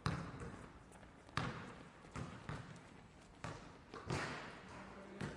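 Basketball bouncing on a hard floor: about eight sharp bounces at uneven intervals, some in quick pairs.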